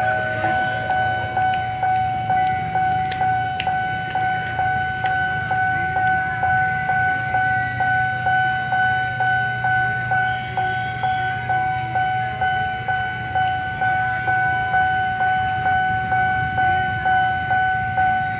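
Railway level-crossing warning bell ringing on and on, a single pitched ding repeated just under twice a second, with a low engine-like rumble underneath.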